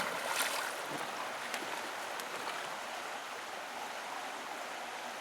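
A single sharp click at the very start, then a steady rush of flowing water with a few faint ticks.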